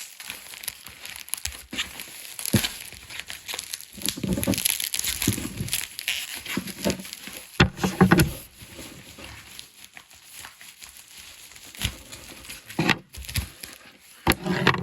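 Hands opening toy packaging: plastic and cardboard crinkling and rustling, with scattered sharp clicks and knocks as the tape and box are worked open.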